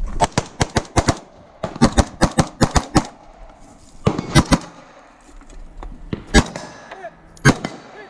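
Gunshots from a 3-gun competition stage fired in rapid strings: two fast runs of shots in the first three seconds, a short group near four seconds, then a few shots spaced further apart.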